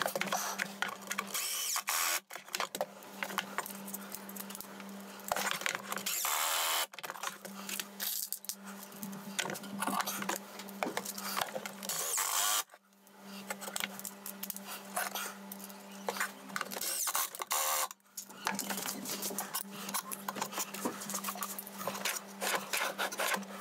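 Cordless drill-driver driving screws from inside a drawer box into the MDF drawer front, its motor whining steadily in several runs with short pauses between them, plus knocks of the work being handled.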